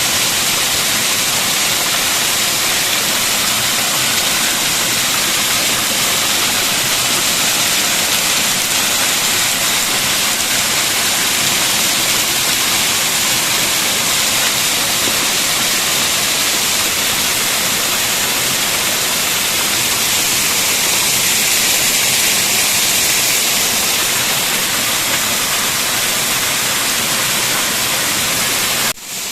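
Waterfall pouring, a steady loud rush of water that dips briefly near the end.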